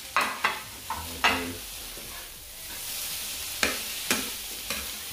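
Chopped beef offal sizzling in a frying pan as a metal spoon stirs it, with several sharp clinks and scrapes of the spoon against the pan.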